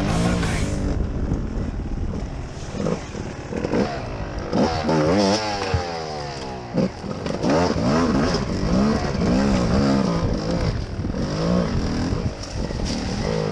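Enduro dirt bike engine revving up and down repeatedly, close to the rider, with a long drop in pitch about five seconds in as the throttle is rolled off.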